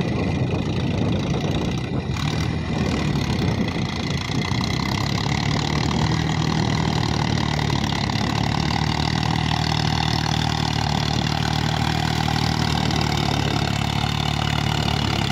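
Tractor's diesel engine running steadily under load as it works through deep paddy-field mud.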